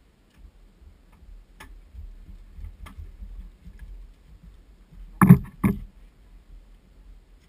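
Two sharp knocks about half a second apart, over a faint low rumble of wind on the microphone.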